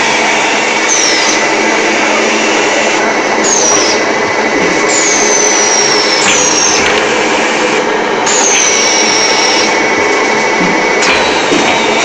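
Terrazzo floor tile making machine (MM600) running with a loud, steady mechanical din from its electric motor and mixer. High whistling tones slide downward in pitch again and again over the top.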